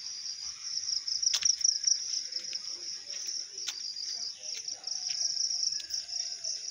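Insects trilling in a steady, high-pitched chorus, with a couple of sharp clicks about a second and a half and about three and a half seconds in.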